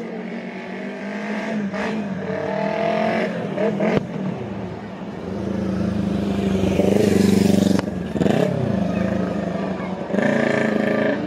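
Road traffic passing close by: a car engine swells to its loudest as it goes past, with a motorcycle following, and a sharp crack about four seconds in.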